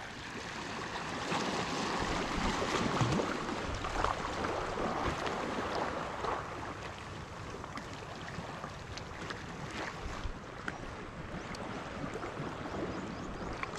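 Small waves of a calm sea lapping and splashing against shore rocks, a steady wash that swells a little in the first half, with a few faint clicks.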